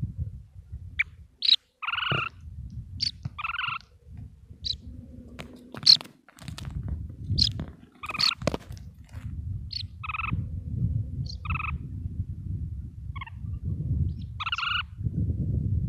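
Small plover calling repeatedly beside its nest: a string of short, sharp call notes, some higher and thinner, some lower and fuller, the kind of calling a plover makes when alarmed near its nest. A low rumble of wind on the microphone runs underneath.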